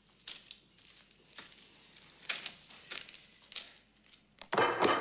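Paper rustling in a series of short strokes as the pages of bound notebooks are handled and leafed through, with a short, louder sound near the end.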